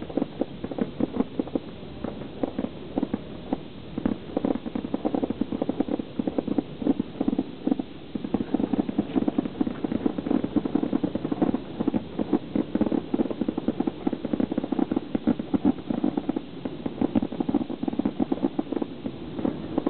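Fireworks going off in a rapid, continuous barrage: a dense, irregular stream of dull pops and bangs, several a second, without a pause.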